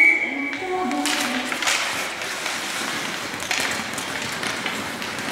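Ice hockey skates scraping and carving on the ice, with sticks tapping the puck and the ice, as play starts from a faceoff. A short, high, steady tone sounds right at the start.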